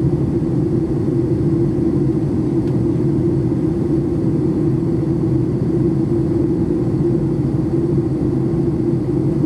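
Steady cabin rumble of a Boeing 737 MAX 8 under power, its CFM LEAP-1B engines and rushing air heard as an even, low drone.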